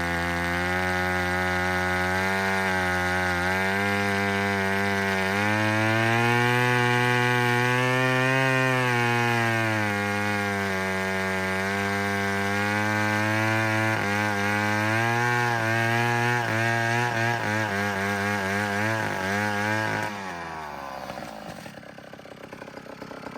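1959 McCulloch Mac 150 80cc two-stroke chainsaw running at full throttle through a log in a slow cut. Its pitch sags and recovers under load and wavers in the last few seconds of the cut, then the revs fall away about twenty seconds in.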